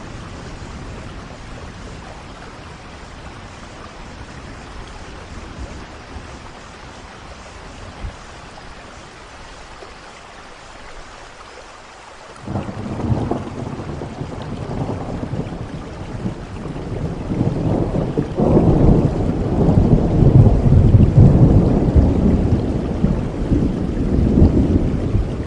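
Steady rain hiss, then a roll of thunder that breaks in suddenly about halfway through and swells into a loud, low rumble over the last several seconds.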